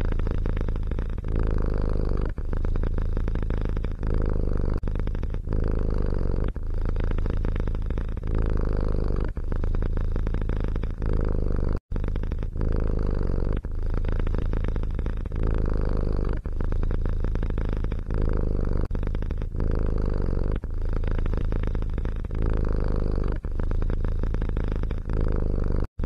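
Domestic cat purring close to the microphone, a steady low buzz that swells and eases with each breath, about one cycle every two seconds. The sound cuts out for an instant about twelve seconds in.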